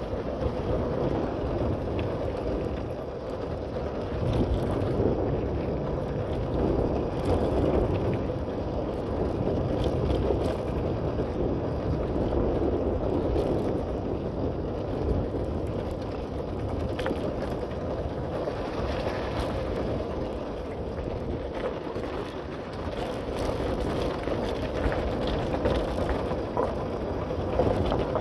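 Bicycle on the move: a steady low rumble of tyres and air on the microphone, with scattered light clicks and rattles from the bike.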